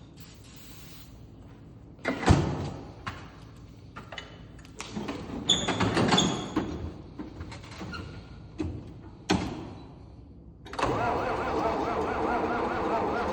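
A cold engine, kept plugged in on its block heater, being started hard in freezing weather: a few sharp clunks and a spell of mechanical noise with a thin whine, then at about 11 seconds the engine catches and keeps running steadily and louder.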